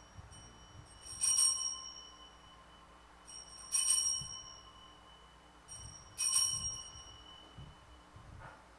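Altar bell rung three times, about two and a half seconds apart, each a bright, high ring that dies away slowly: the sanctus bell marking the elevation of the chalice at the consecration.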